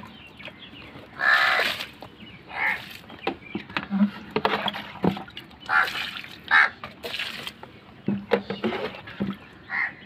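Water splashing as it is poured onto plants and soil in a garden bed, in several separate splashes.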